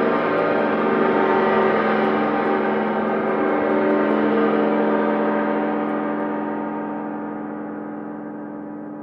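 Long metallic ringing made of many steady overtones, like a large struck gong, holding for about five seconds and then slowly dying away, the higher tones fading first.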